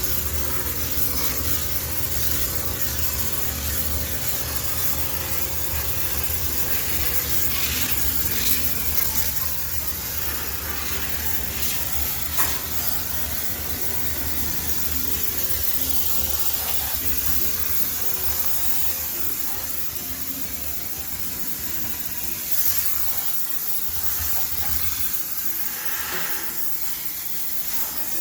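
High-pressure steam sterilizer jet hissing steadily as it steams out a laundromat washing machine, over a steady low hum that fades out near the end.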